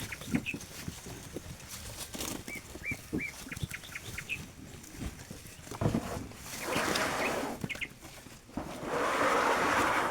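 Birds chirping in short repeated calls, with scattered clicks and knocks. Two stretches of rustling noise of about a second each come about six and a half and nine seconds in, the second being the loudest.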